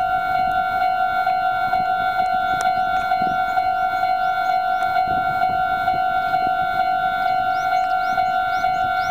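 Japanese railway level-crossing alarm ringing, a steady repeating electronic bell tone warning that a train is approaching.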